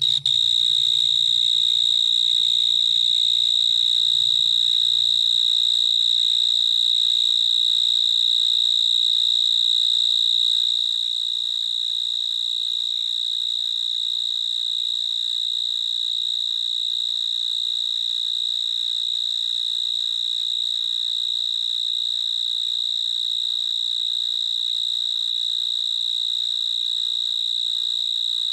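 Cricket singing a loud, steady, high-pitched trill, which gets slightly quieter about eleven seconds in.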